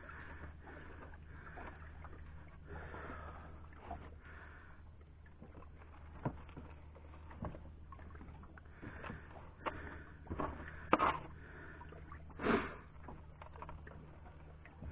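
Quiet handling knocks and clicks aboard a small fishing boat, scattered and growing more frequent in the second half, with one louder short scrape or knock about twelve seconds in. Under them, a faint steady low hum and light water noise.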